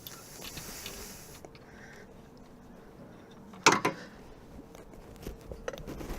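Hand tools working on metal around the engine's timing end: one sharp metal clank about three and a half seconds in, then several smaller clicks and knocks near the end.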